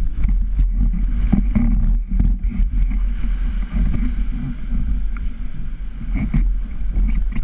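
Wind buffeting the microphone in a loud, uneven low rumble, with the noise of a small boat on the water beneath it.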